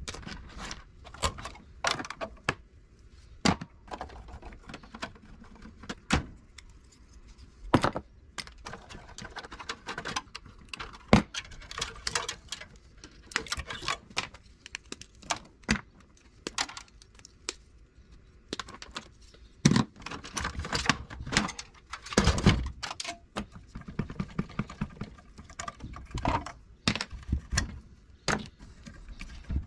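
Irregular clicks, knocks and metallic clinks of hand tools and parts as a CRT television is taken apart by hand: wires pulled and cut, pliers set down on a plastic tray, sheet-metal chassis panels handled. The clatter is busiest about twenty seconds in.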